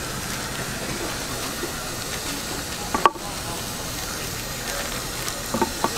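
Knife and braised pig's trotter slices being handled on a wooden cutting board: one sharp knock about halfway through and a few lighter knocks near the end, over a steady hiss.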